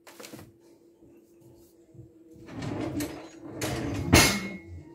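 Kitchen handling noises: a small click, then rustling and shuffling about halfway through, ending in a sharp clink with a brief ring near the end. A faint steady hum runs underneath.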